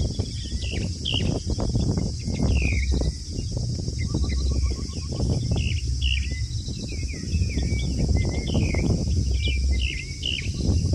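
Many small birds chirping with short calls that glide up and down, over a steady low rumble and a constant high hiss.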